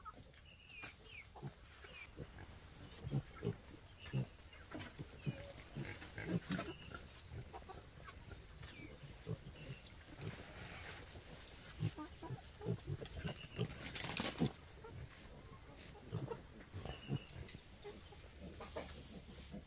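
Young wild boar piglets grunting as they root about in a dirt pen, with short scattered scuffles and knocks, a few brief high calls, and one louder scrape about fourteen seconds in.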